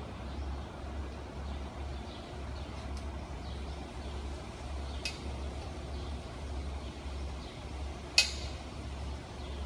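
Outdoor street ambience: a steady low rumble under a light background hiss. A faint sharp click about five seconds in, and a louder sharp click about eight seconds in.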